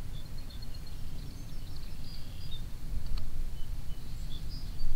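Low, steady rumble of outdoor background noise with faint, scattered bird chirps and one faint click about three seconds in.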